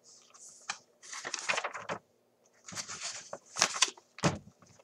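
Paper rustling and crinkling in irregular bursts as a picture book's pages are handled and turned, with a sharper knock about four seconds in.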